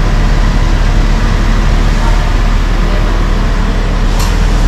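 Steady running noise of a car on the move: a constant low rumble of engine and road with hiss above it.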